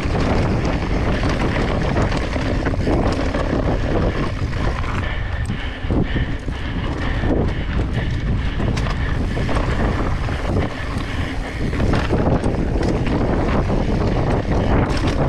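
Wind buffeting the microphone of a mountain bike riding fast down a dirt singletrack, with the tyres crunching over loose dirt and rocks and the bike clattering over the bumps.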